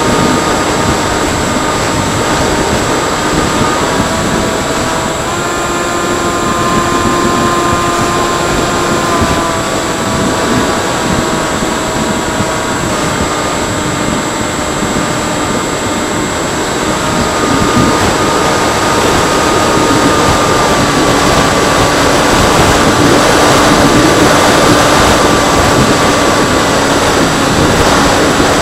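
Freewing Seagull RC model airplane in flight: its electric motor and propeller whining under steady wind rush. The motor's pitch steps up and down several times as the throttle changes.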